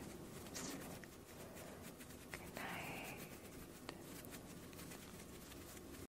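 Close-miked ASMR mouth sounds: a few sparse, sharp wet lip and tongue clicks, with a soft breathy puff about two and a half seconds in. The sound cuts off suddenly at the end.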